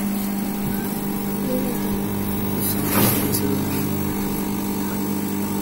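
Aquarium pump humming steadily with a buzzy mains-frequency drone, and a short burst of noise about three seconds in.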